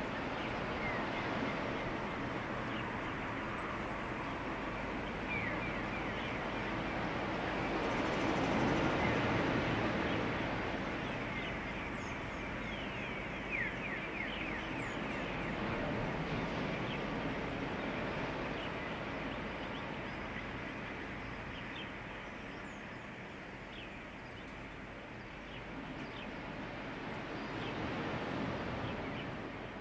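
Underwater noise picked up by a diver's camera: a steady rush of water with many short, quick chirps. It swells louder about eight to ten seconds in.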